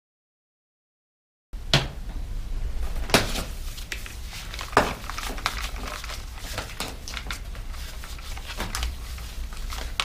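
Dead silence for about the first second and a half, then workshop tools being handled: a series of sharp clicks and knocks over a low steady hum.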